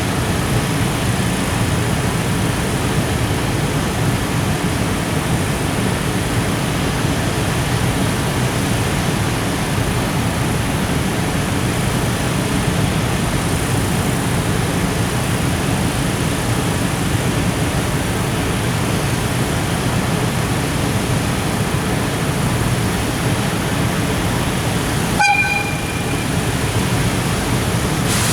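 Container freight train rolling past, a steady low rumble of wagon wheels on the rails. A short horn toot sounds near the end.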